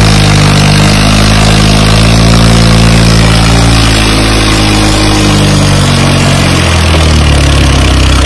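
New Holland 3630 tractor's three-cylinder diesel engine running hard as it pulls a loaded earth trolley through loose sand, its pitch slowly sagging under the load over the first six seconds or so, then shifting near the end.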